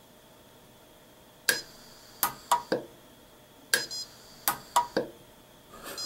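Orion M-Pulse pulse arc welder firing eight sharp snaps, starting about a second and a half in, in two quick groups, as its electrode is touched down on two fine thermocouple wire tips to weld them together.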